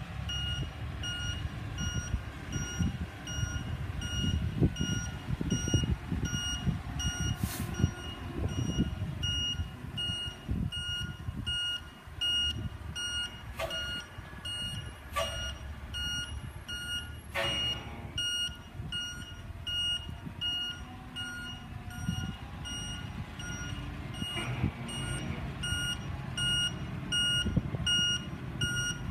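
Reversing alarm of a heavy tandem-axle dump truck beeping in a steady repeating rhythm as the truck backs up, over the low rumble of its diesel engine. A few short, sharp knocks sound around the middle.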